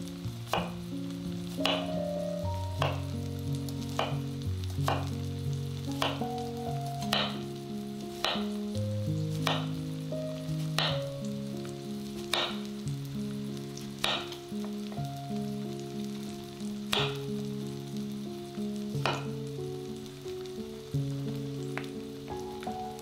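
Food sizzling as it fries in oil in a pan, with sharp clicks now and then. Background instrumental music with sustained notes plays throughout.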